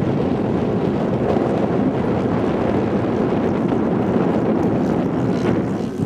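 Wind buffeting the microphone in a steady, loud rush.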